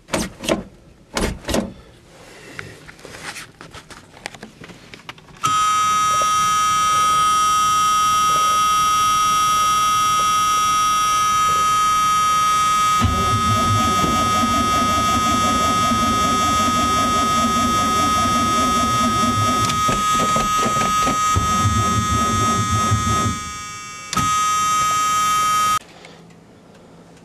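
A steady high-pitched warning buzzer sounds with the ignition on. About halfway through, the starter cranks the cold big-block V8 for about ten seconds with a rhythmic low churning, and the engine does not catch. The buzzer drops out briefly when cranking stops, sounds again, then cuts off.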